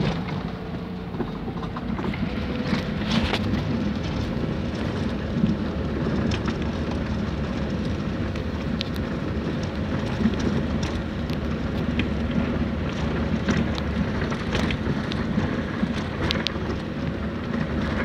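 A car driving on a narrow rough road, heard from inside the cabin: steady engine and tyre noise with scattered small clicks and rattles.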